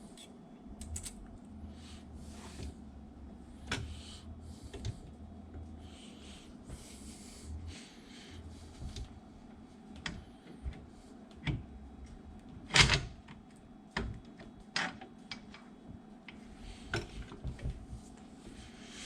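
Scattered metal clicks and knocks of valve springs and valves being fitted into small-block Chevy cylinder heads, with one sharp, loud knock about 13 seconds in. A low hum runs under the first half.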